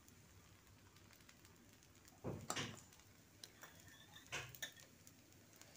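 Faint crackle of dosa batter cooking on a hot tawa, with short knocks about two seconds in and again just past four seconds.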